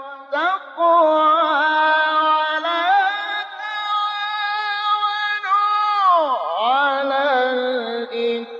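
A man's voice reciting the Qur'an in long, sung melodic phrases, holding ornamented notes without accompaniment. There is a brief break just after the start and a deep swoop down in pitch and back up about six seconds in.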